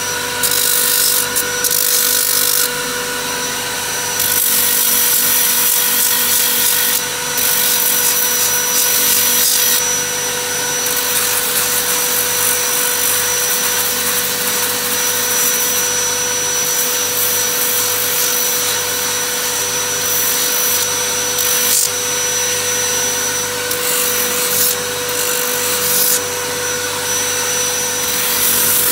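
Motor-driven sanding drum running with a steady whine, and the hiss of abrasive on wood rising and falling as a wooden cricket bat is pressed against the spinning drum and worked along it.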